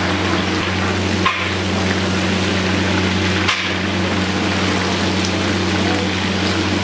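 Chicken pieces frying in bubbling hot oil in a pan, a steady sizzle over a low hum. There are two brief knocks, about a second in and again halfway through, while a ladle stirs the pieces.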